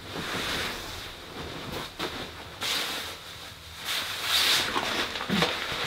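Sleeping bag fabric rustling and swishing in several swells as the bag is bundled up and stuffed into a mesh stuff sack, loudest about four seconds in.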